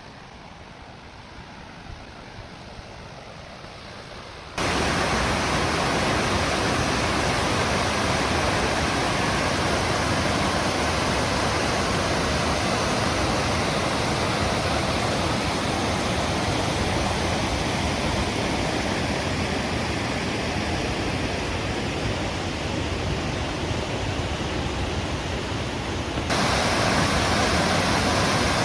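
Waterfall noise: a steady, even rush of falling water. It starts fainter with a low rumble, then abruptly becomes much louder and fuller about four and a half seconds in, with another sudden step up near the end.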